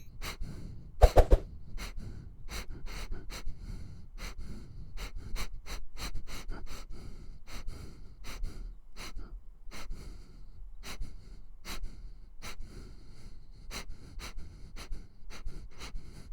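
A dog sniffing in a long run of quick, short sniffs, about two to three a second, with a louder sniff about a second in. The sniffing stops abruptly at the end.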